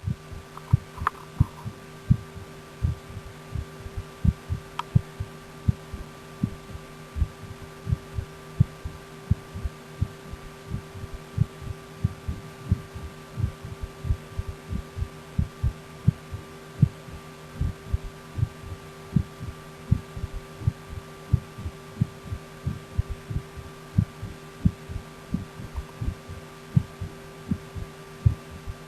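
Human heart heard through a stethoscope: a steady, regular rhythm of paired low thumps (lub-dub), over a steady low hum.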